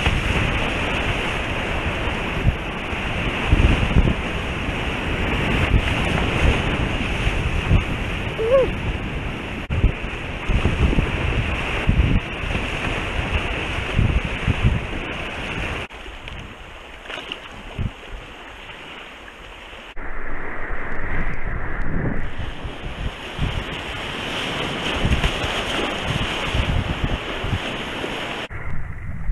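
River whitewater rushing around a kayak running rapids, with wind buffeting the action camera's microphone in low gusts. It drops quieter for a few seconds a little past halfway, then comes back.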